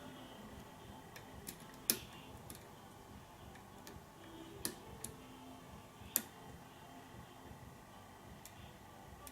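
Faint metallic clicks and ticks of a lock pick working the pins inside a lock, with a few sharper clicks about two, four and a half and six seconds in.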